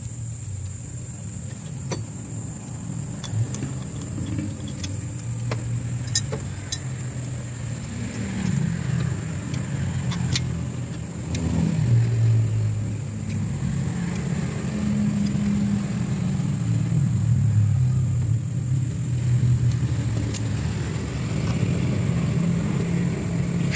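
Low rumble of a motor vehicle engine running, rising and falling in pitch and louder in the second half, with a few sharp metallic clicks from parts being handled.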